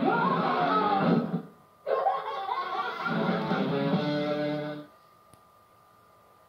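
Movie-trailer music playing from a VHS tape through a TV, with a short break about one and a half seconds in. It stops about five seconds in, leaving near silence with a faint steady tone and a single click.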